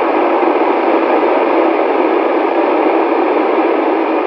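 Steady FM receiver hiss from a Kenwood TH-D74 handheld radio tuned to the AO-91 satellite's downlink, with no voice on the channel: open-squelch noise between transmissions. The hiss has a radio's narrow, tinny range with no deep bass.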